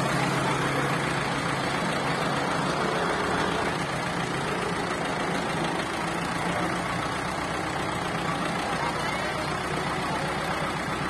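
Ford farm tractor's diesel engine running steadily at low revs, a constant low drone that eases off slightly about four seconds in.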